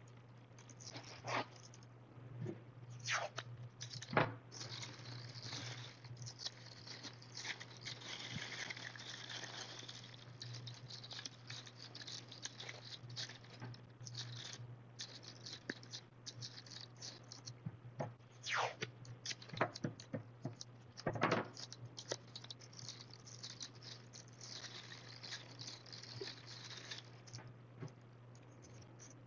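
Thin plastic bag crinkling and rustling as it is handled and pressed down, with blue masking tape ripped off the roll in several short, sharp pulls. A steady low hum runs underneath.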